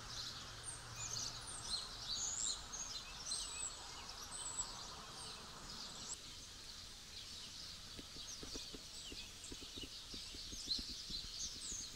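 Several small birds chirping and twittering in quick, overlapping short calls, with a few faint soft clicks in the second half.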